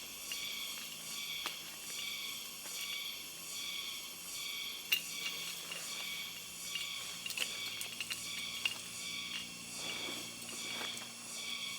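Night insects chirping in a steady high chorus that pulses about twice a second, with scattered small clicks and ticks over it.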